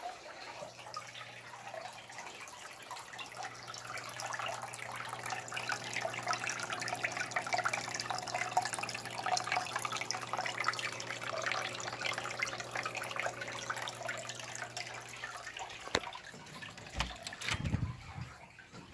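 Water running and splashing with a steady low hum under it. Both stop about three seconds before the end, followed by a click and a few low knocks.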